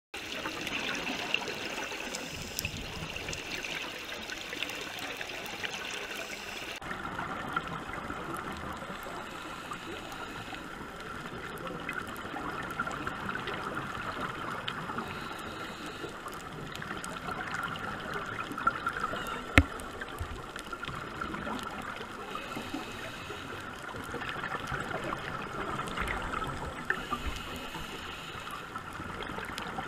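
Underwater ambient sound picked up through a camera's housing: a steady watery hiss full of faint scattered clicks, whose tone changes abruptly about seven seconds in, with one sharper click about two-thirds of the way through.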